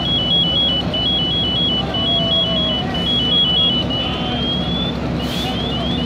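An electronic alarm, most like a car alarm, cycling through its tones: a high-low warble, then a single rising sweep about four seconds in, then a run of quick rising chirps near the end. Under it runs a steady low engine rumble from the fire apparatus.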